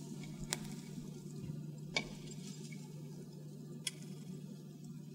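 Twigs snapping and crackling as a small wood fire in a tin-can stove is fed: three sharp clicks spread over a few seconds, over a faint steady hum.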